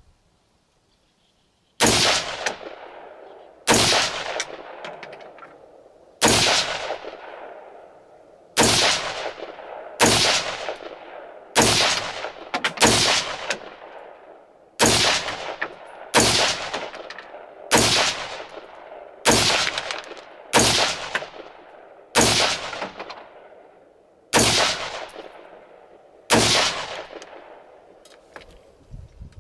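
AR-15 carbine in M4 configuration fired in slow, steady single shots: about fifteen rounds, one every one and a half to two seconds. Each report is sharp, with a long echoing tail that fades before the next shot.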